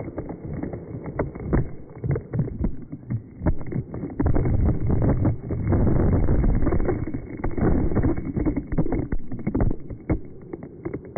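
A huge load of water from a water-park tipping bucket crashing down over the phone, heard slowed down in slow motion: a deep rushing and splashing, loudest in the middle and thinning out near the end as the drops fall off.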